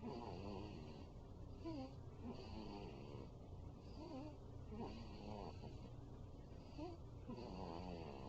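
Quiet snoring of a sleeping five-week-old, repeating with each breath about once a second, with little squeaky, whistling pitch glides on many of the breaths.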